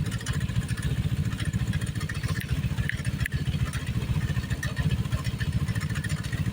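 Small vehicle engine running steadily with a fast, even low pulsing.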